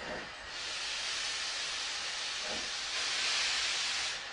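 A steady hiss, likely an added sound effect, that grows louder about three seconds in and cuts off suddenly just before the end. Two faint, short low swoops come at the start and about two and a half seconds in.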